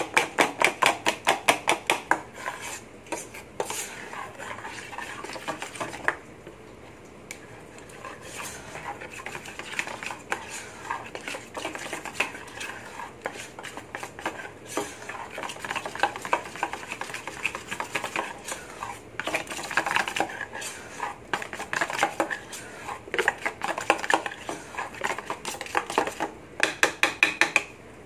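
Metal spoon beating a thick flour batter in a stainless steel bowl. It clinks against the sides in quick, regular strokes, several a second, at the start and again near the end, with slower stirring and scraping in between.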